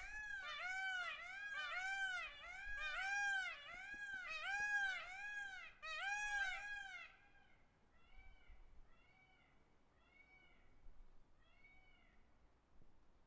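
Peacock calling: a rapid series of about a dozen rising-and-falling, meow-like honks, roughly two a second. After about seven seconds these give way to fainter calls spaced further apart.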